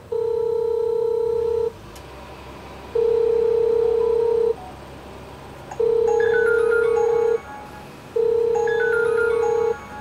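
Video doorbell's calling tone: a long steady beep of one pitch repeated four times, each about a second and a half long, as the call rings unanswered. From about six seconds in, a smartphone ringtone joins with a falling run of short notes as the call reaches the app.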